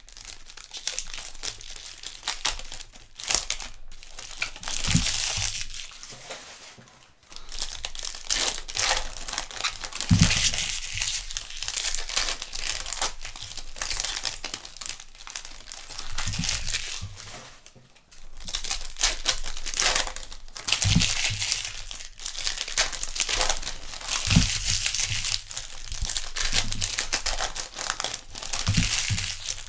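Trading card pack wrappers being torn open and crinkled by hand, a continuous uneven crackle with brief pauses between packs and an occasional soft knock as the cards and packs are handled.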